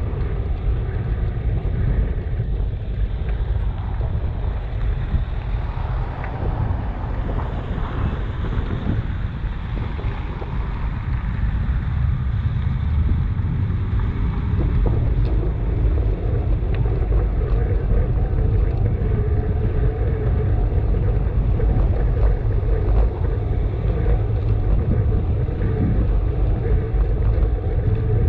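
Wind buffeting the microphone and low road rumble from a moving bicycle, steady throughout; about halfway a steady humming tone joins in.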